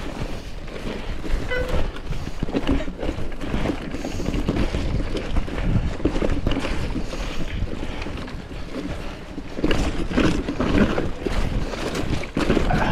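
Mountain bike ridden down a wet, muddy forest trail: tyres rolling and splashing through mud and puddles and the bike rattling over rough ground, with wind buffeting the camera microphone. It comes in uneven surges, loudest about ten seconds in and again near the end.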